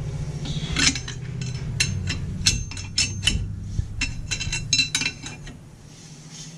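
A long steel bar clinking against a car's rear brake drum and hub: a string of sharp, ringing metal clinks over a low steady rumble that fades out near the end.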